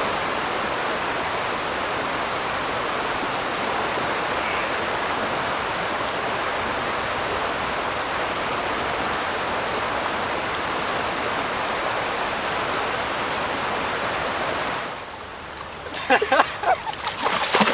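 Floodwater rushing in a steady, even rush that cuts off about fifteen seconds in.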